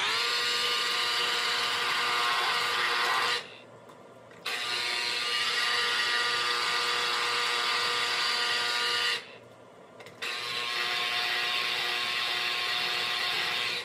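Electric citrus juicer's motor running, really loud, as lemon halves are pressed down on its reamer: a steady whine that cuts out twice for about a second and then starts again as the pressure comes off and goes back on.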